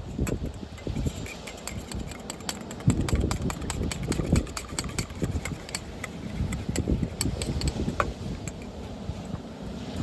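Strong wind buffeting the microphone in uneven gusts, with many small, sharp clicks scattered over it.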